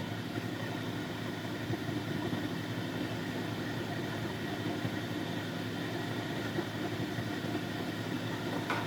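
Lapidary grinding machine's electric motor running steadily with an even hum.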